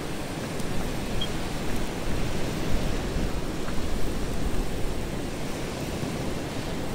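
Steady rushing noise of stormy wind and sea, with wind buffeting the microphone.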